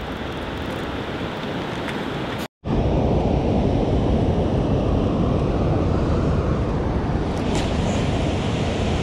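Wind buffeting the microphone over the rush of moving water: a steady, deep noise. It drops out for an instant about two and a half seconds in and comes back louder.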